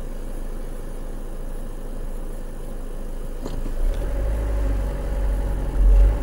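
Car engine idling, heard from inside the cabin, then pulling harder as the car moves off from the lights about four seconds in, with a low rumble growing louder.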